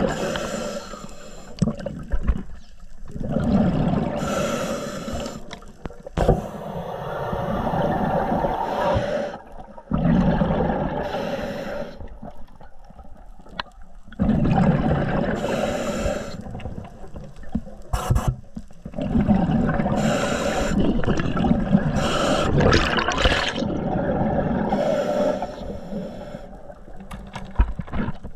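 Water sound heard underwater by an action camera: muffled rushing and bubbling in surges of a few seconds each, with short lulls between.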